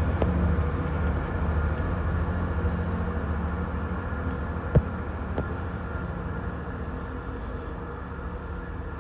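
Class 166 Turbo diesel multiple unit's underfloor diesel engines running as the train pulls away, the drone slowly fading. Three short knocks sound over it, one near the start and two about halfway through, the middle one the loudest.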